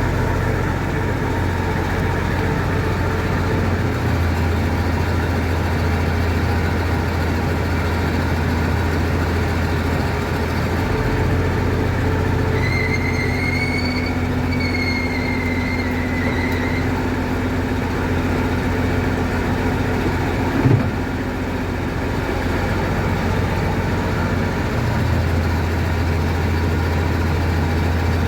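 Combine harvester engine running steadily. About halfway through, a high whine rises and falls for about four seconds, and a single short clunk comes about three-quarters of the way in.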